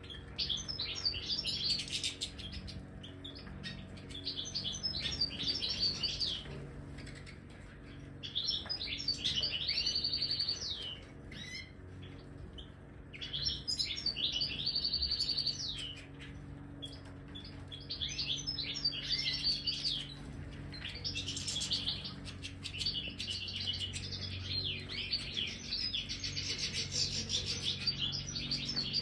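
European goldfinches singing: fast liquid twittering mixed with buzzy, nasal notes, in bursts of a few seconds with short pauses between them.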